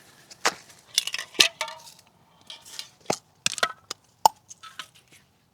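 Handling sounds from a strip of cardboard and a can of chain cleaner: a string of irregular clicks, taps and short rustles, with one sharp clink a little past four seconds in.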